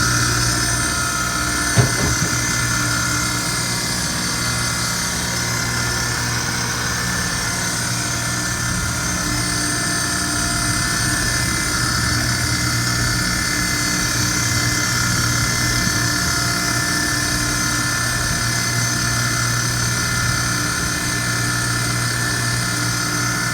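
Amada punch and die tool grinder running steadily, its 1 hp motor spinning the grinding wheel and its coolant pump on, giving a steady hum with a high whine. A single sharp knock comes about two seconds in.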